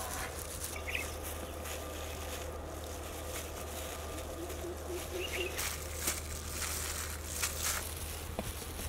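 Gloved hands sprinkling and rubbing a dry spice mix onto raw tuna pieces in a steel tray: soft pattering and rustling, busiest a little after the middle, over a steady low hum. A couple of faint bird chirps.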